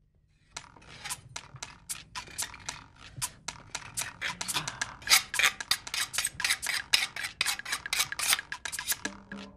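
A fast, fairly even run of sharp clicks and light clinks, about five or six a second, starting suddenly about half a second in; a music cue with steady notes comes in just before the end.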